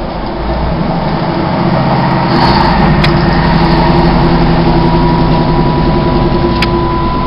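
Class 156 diesel multiple unit heard from inside the carriage, its underfloor Cummins diesel engine running under power. The engine grows louder over the first couple of seconds and then holds steady, with a steady higher whine joining about five seconds in. Two sharp clicks come about three seconds in and again near the end.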